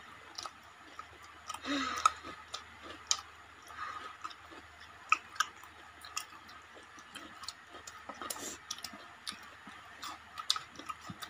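Close-up eating sounds: scattered small clicks and smacks of mouths chewing, as people eat rice and fish with their fingers.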